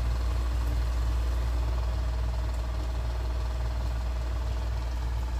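Steady low hum that runs unchanged, with no other events.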